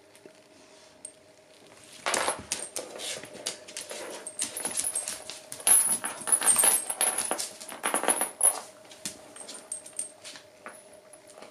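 A Shiba Inu and a bull mastiff tussle over a chew toy on a hard floor: their metal chain collars jangle and clink, with scuffling and clicking claws. It starts about two seconds in and thins to a few clicks near the end.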